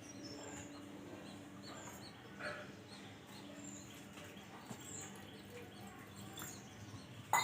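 Birds chirping: short high chirps repeating every second or so over a steady low hum, with a sharp click near the end.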